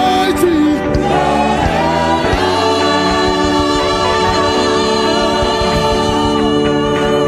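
Gospel praise music with choir singing; about two seconds in the voices and band settle into one long held chord.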